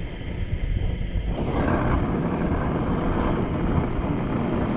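Gas torch flame hissing steadily while heating a bent steel bolt, the hiss growing louder and brighter about a second and a half in.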